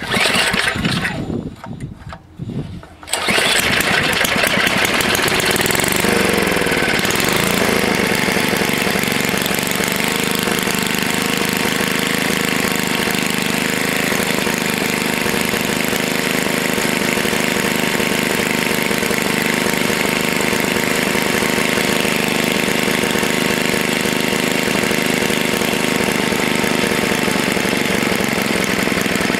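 Tecumseh HS40 4 hp single-cylinder engine sputtering in uneven bursts, then catching about three seconds in and running. Around six seconds in its speed dips and comes back up, then it settles into a steady run.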